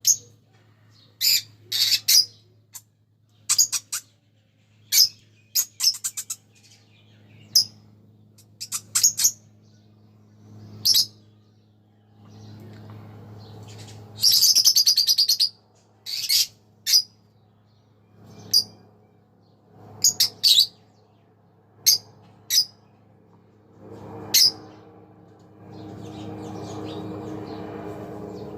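A pair of green Fischer's lovebirds chirping: short, sharp, high chirps in scattered groups, with a longer run of rapid chatter about halfway through. A steady low hum runs underneath.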